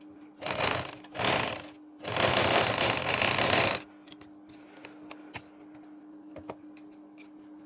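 Sewing machine stitching a lace strip onto a sleeve in three runs: two short bursts, then a longer run of nearly two seconds that stops about halfway through. After that only faint clicks as the fabric is handled.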